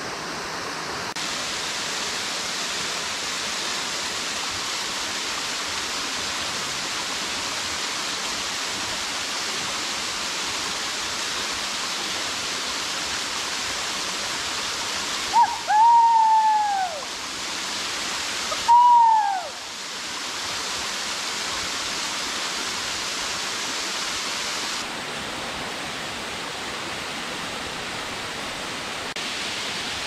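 A high waterfall pouring steadily into its pool, a dense even rush of falling water. About halfway through, two short high calls sound a few seconds apart, each falling away at its end.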